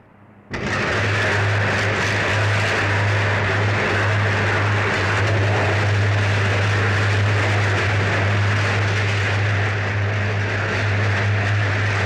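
Electric arc furnace under power, its arcs burning into a freshly charged load of scrap. It starts suddenly about half a second in, then runs as a loud, steady rushing noise over a deep, constant electrical hum.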